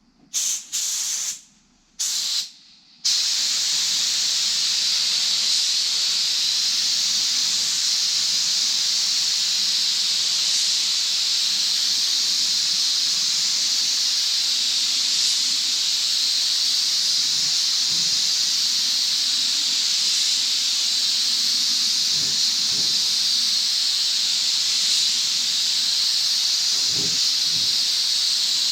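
Paint spray gun hissing as it lays a light coat of clear coat: two short trigger pulls in the first few seconds, then a long continuous spray.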